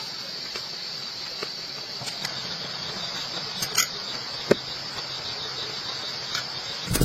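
A steady high-pitched trilling of night insects, with a few scattered clicks and taps.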